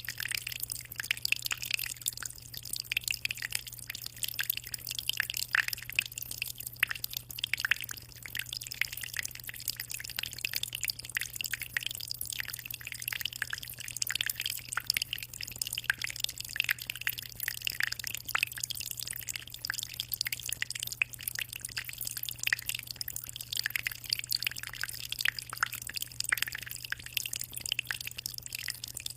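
Water in a small aquarium trickling and splashing constantly, as a dense, irregular patter of small drips, over a steady low hum.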